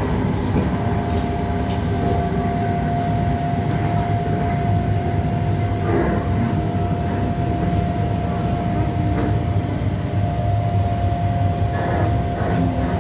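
EP2D electric multiple unit running at speed between stations, heard from inside the car: a steady rumble of wheels on rail with a high tone held through most of it. There is a knock about six seconds in and a few more near the end.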